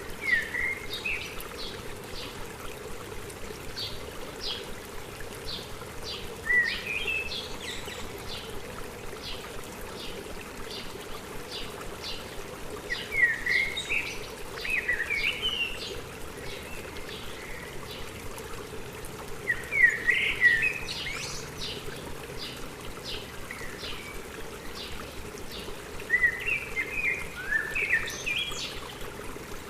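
A songbird singing a short warbling phrase about every six seconds, with many quick high notes between the phrases, over a steady trickle of running stream water.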